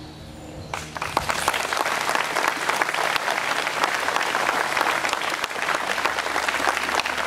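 Audience applauding, beginning about a second in: a dense, even patter of many hands clapping at the end of a speech.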